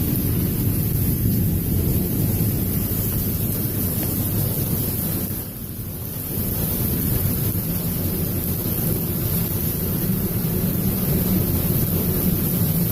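Strong storm wind gusting across the microphone, a loud low rumbling buffet that eases briefly about halfway through and then builds again.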